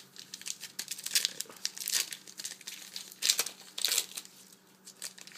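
Foil wrapper of a trading-card pack crinkling and tearing as it is opened by hand, with irregular sharp crackles, several louder than the rest.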